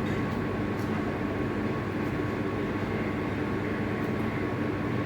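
Metal lathe running steadily at very slow speed, a knurling tool rolling a grip pattern into a mild steel workpiece, a steady hum with a few faint ticks.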